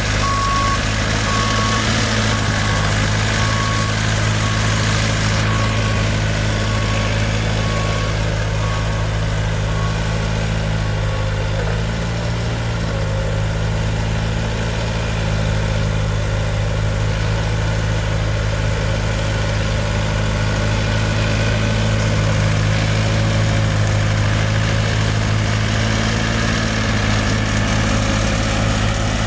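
Heavy diesel engine running steadily at a low idle. A reversing alarm beeps about once a second at first, growing fainter and stopping about ten seconds in.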